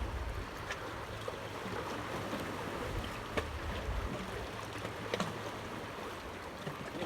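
Steady wash of water, with wind rumbling on the microphone for about the first half and a few faint sharp clicks.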